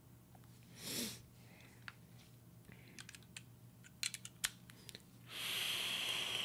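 Small clicks and taps as the dripping atomizer (a Goon 22 RDA with micro coils) is handled and closed, then a steady hiss of about a second near the end: a drag being pulled through the atomizer as the freshly wetted coils fire. A short breathy whoosh comes about a second in.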